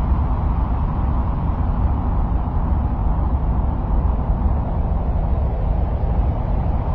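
Steady, low rumbling noise, heaviest in the deep bass and without any distinct events, presented as the ambient sound of Mars.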